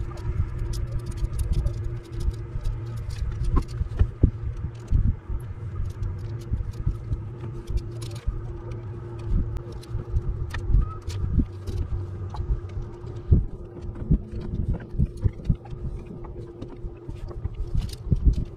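Uneven low rumble of wind and choppy water around a small open boat, with many small clicks and rattles as fishing tackle is handled at the rod and reel, and a faint steady hum underneath.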